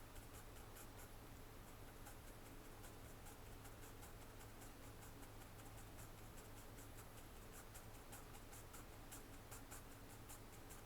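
Faint pencil scratching on paper in many quick short strokes, over a low steady hum.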